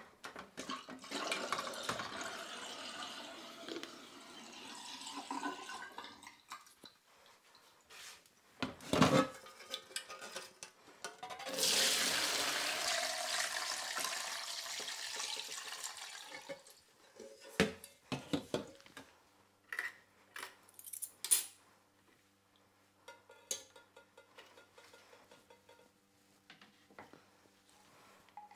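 Cooled wort poured from a metal stockpot through a stainless mesh strainer into a plastic fermenter bucket: a splashing pour of about five seconds, the loudest part. Before it, water sloshing and running as the pot is lifted from its cold-water bath in the sink, and a couple of knocks of the pot; a few light clicks and taps follow.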